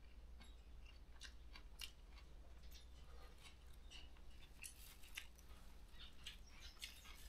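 Faint, irregular small clicks and crackles of a person eating close to the microphone: chewing and handling a flatbread held in a plastic bag.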